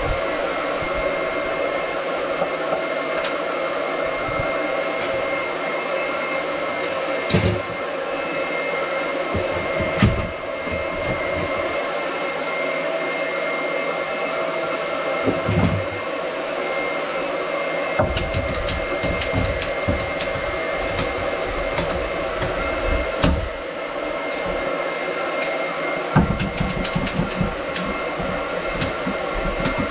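A small motor running steadily with a constant whine, with scattered knocks and clatter from handling that come more often in the last third.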